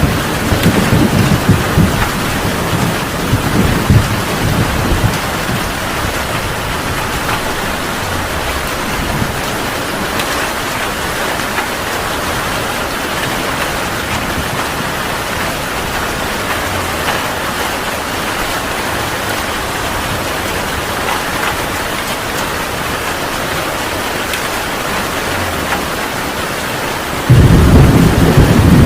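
Heavy rain pouring steadily in a thunderstorm. Thunder rumbles for the first few seconds, and another loud rumble of thunder breaks in suddenly near the end.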